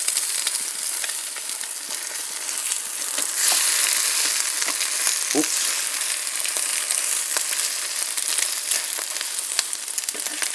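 Eggs and buttered rye bread frying in a pan: a steady sizzle with fine crackling.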